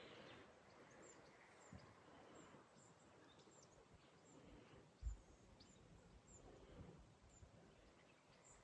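Near silence outdoors, with faint, short, high bird chirps repeating every second or so and a soft low thump about five seconds in.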